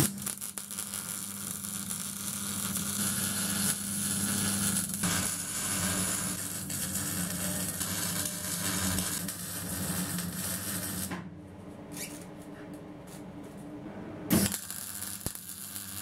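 Electric arc welding on steel tubing: the arc's steady crackling hiss over a low hum, breaking off about eleven seconds in into a few short bursts of crackle before welding resumes.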